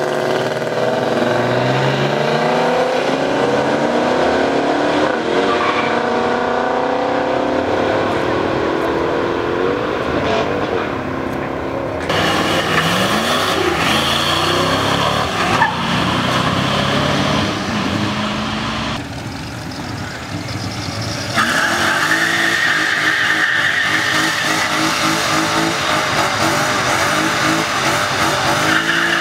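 Old muscle car engines at full throttle down a drag strip, rising in pitch and dropping back as they shift gears. A pickup passes at speed, and in the last several seconds a car does a burnout, its rear tires squealing in a steady hiss over the engine.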